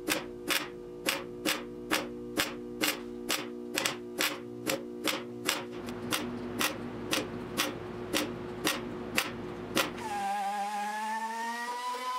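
Background music: a steady ticking beat, about two ticks a second, over a held chord. About ten seconds in, the beat stops and a gliding melody takes over.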